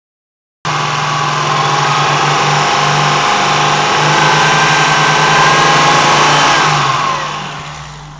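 Car engine running with a rattle, starting after a brief dropout. Its pitch creeps up slightly, then falls away as the sound fades near the end.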